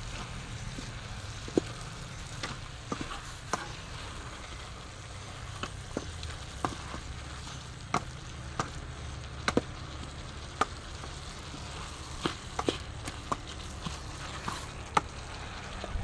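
Wooden cooking spoon tapping and scraping against a stainless-steel pot while cabbage and tomatoes are turned over, a sharp knock every second or so, over a soft sizzle from the steaming pot.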